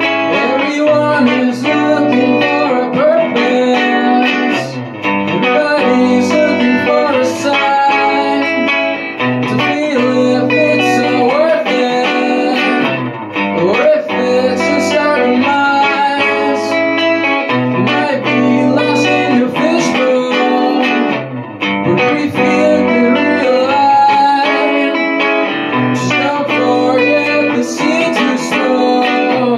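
Electric guitar being played, with a man singing along into a microphone.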